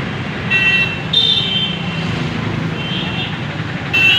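Busy street traffic with a steady rumble of engines, broken by several short vehicle horn toots, the loudest near the end.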